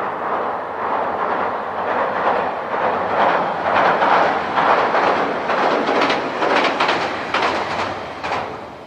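A short train crossing a steel truss railway bridge, its wheels clattering over the rail joints. The sound builds to its loudest in the middle and begins fading away near the end.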